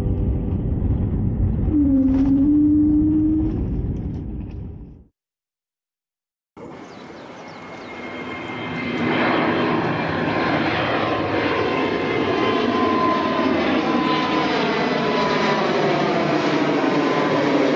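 Airbus A320-family twin jet heard from inside its cabin: a deep engine rumble with a droning tone that rises slightly about two seconds in, fading and then cutting off abruptly. After a second and a half of silence, a jet airliner climbs away overhead. Its engine noise builds over a few seconds, then holds steady with a whine and a swishing, phasing sound.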